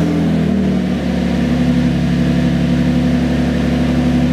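2011 Chevy Malibu's engine idling steadily just after starting, its exhaust loud. The loudness comes from an exhaust leak at the flange, where a bolt has rusted out and broken.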